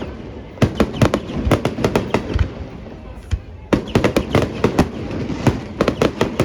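Fireworks going off in rapid volleys of sharp bangs and crackles, with a brief lull about halfway through before a second dense volley.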